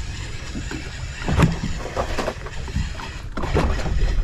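Wind buffeting the microphone and water lapping against the hull of a drifting boat, with a few short knocks and rattles, loudest about a second and a half in and near the end, as an angler winds in a fish on a conventional reel.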